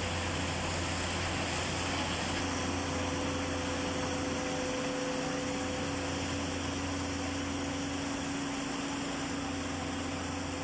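Steady hum of machinery running, with a low drone under a noise haze; a second steady tone joins about two seconds in.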